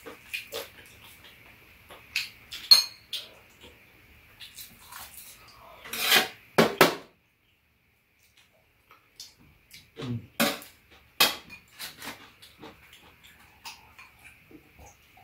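Metal spoons and chopsticks clinking and scraping against rice bowls and a frying pan during a meal, in scattered irregular clinks with a few louder clatters. The sound cuts out completely for about two seconds in the middle.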